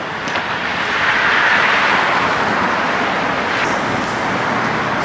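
Road traffic: cars passing on a busy city road, a steady rush of tyre and engine noise that swells about a second in.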